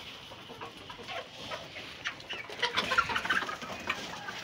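Chickens clucking, with the clicks and rattle of dry feed being poured into a plastic hanging feeder and scooped from a bucket, busiest about three seconds in.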